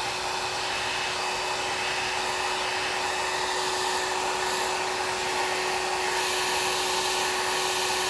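Compact 1800 W hair dryer running steadily: the rush of blown air with a constant motor whine.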